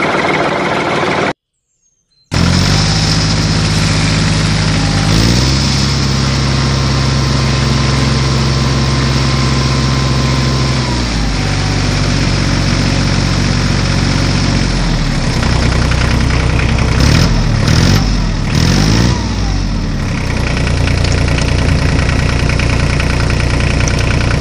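Vehicle engine idling, a steady low drone that cuts out for about a second near the start and then resumes. Its pitch shifts a few times, with short rising and falling revs in the later part.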